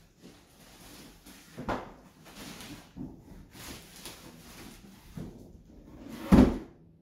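A cardboard shipping box and a plastic-wrapped dog bed being handled: rustling, a dull thump about two seconds in, and a louder, heavier thump near the end.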